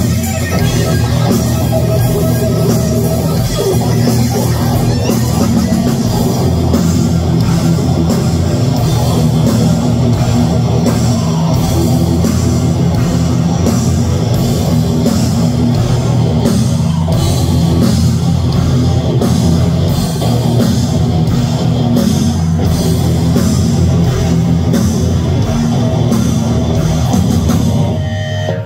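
Live heavy metal band playing loud: distorted electric guitars driving over a drum kit, the whole band stopping abruptly right at the end.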